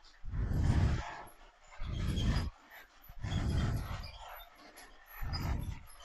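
Playmobil electric toy train running on its track: a rumbling that swells and fades about every second and a half.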